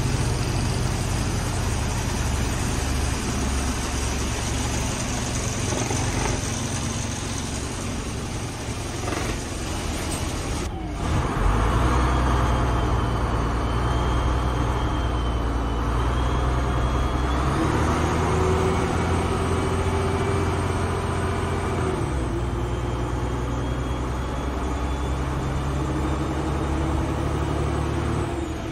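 Gardner 6LXCT six-cylinder diesel engine of an MCV bus heard from inside the passenger saloon while the bus is under way, its note holding and then stepping up and down several times as it moves through the gears. There is a brief drop about eleven seconds in, after which it runs louder.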